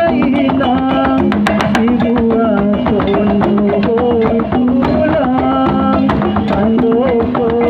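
Gordang sambilan, the Mandailing set of nine tuned drums, played as an ensemble: rapid, dense drum strokes under a wavering pitched melody line.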